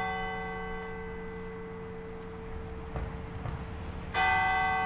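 Bells of the Basilica of Our Lady of Bon-Secours tolling for a funeral. The ring of one stroke dies away slowly, and the next stroke falls about four seconds in, over a steady lower tone.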